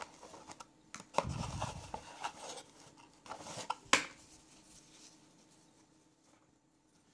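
Unboxing handling noise: a cardboard box and its foam insert rustling and scraping as a torch and its battery are taken out, with several light knocks and one sharp click just before four seconds in, the loudest sound.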